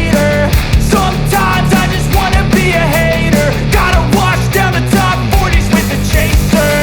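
Background rock music with a steady drum beat and pitched melodic lines.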